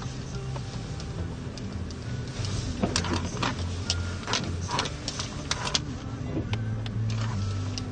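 Nissan X-Trail driving over a rutted, muddy forest track, heard from inside the cabin: a steady low engine hum, with a cluster of sharp knocks and rattles from about three to six seconds in as the car jolts over the ruts.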